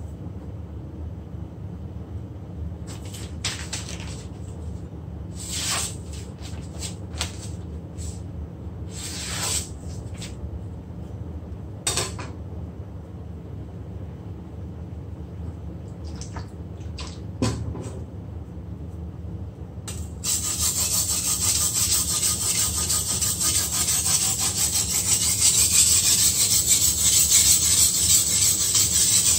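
Scattered short handling sounds and a few sharp knocks as a wet combination whetstone is turned over to its finer side. About two-thirds of the way through, a continuous gritty scraping begins: the steel edge of a Chinese cleaver being stroked back and forth on the fine side of the whetstone, a stage of honing the edge.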